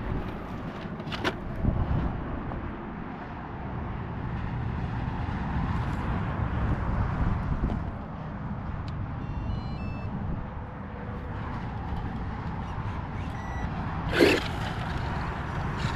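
Steady outdoor background noise. Near the end, a Tamiya Blitzer Beetle RC buggy's electric motor whines briefly and loudly as the car speeds past. A short run of high beeps sounds about midway.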